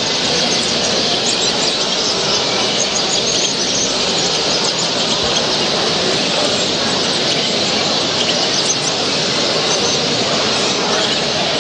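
Many caged birds chirping at once over a steady, loud din of background noise.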